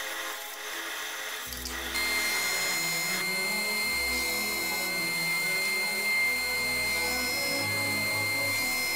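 Woodworking machines running: a band saw cutting a small wooden segment, then from about two seconds in a disc sander with a steady high whine as a wood segment is pressed against the disc. Background music plays underneath.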